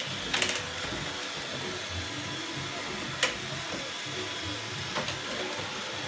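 Roomba robot vacuum running on a hardwood floor: a steady motor and brush whir with a thin whine, and three sharp clicks spread through it.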